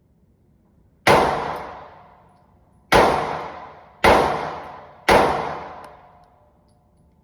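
Four shots from a Glock 43X 9mm pistol, irregularly spaced, the last three about a second apart, each followed by a ringing echo that dies away over about a second.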